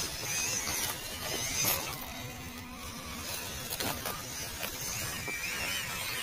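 Small electric 1/12 scale MN99 Defender RC crawler driving over dry leaves and twigs: a thin motor and gear whine that wavers in pitch, with scattered crackles and snaps from the leaf litter under the tyres.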